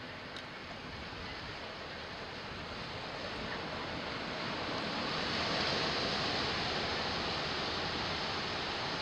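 Ocean surf: a steady wash of breaking waves that swells louder about halfway through.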